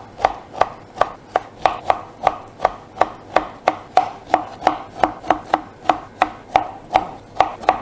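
Knife slicing citrus fruit into rounds on a cutting board: a steady run of sharp knocks, about three a second, as the blade goes through the fruit and strikes the board.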